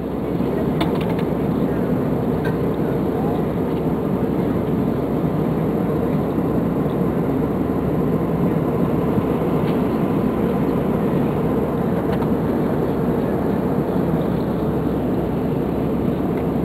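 Steady cabin noise of an Airbus A320 in flight, a dense low rumble of engines and air, with a few faint ticks.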